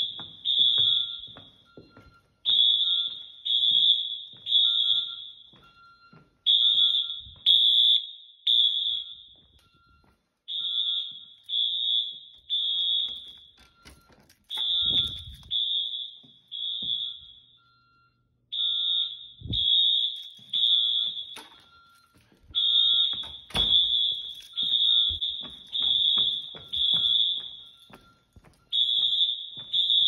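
High-pitched Wheelock fire alarm horns sounding a temporal-three evacuation pattern: three short, shrill blasts, a pause, then three again, over and over. Scattered knocks and thumps from the handheld phone and footsteps run underneath, the loudest about two-thirds of the way in.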